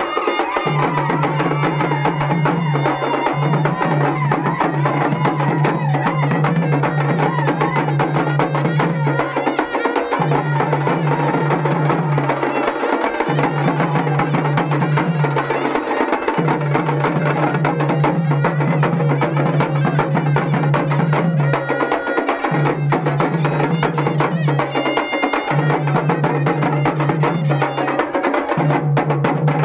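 Live traditional folk music: drums beaten in a fast, dense rhythm over a held low tone that breaks off briefly every few seconds, with a higher melodic line above.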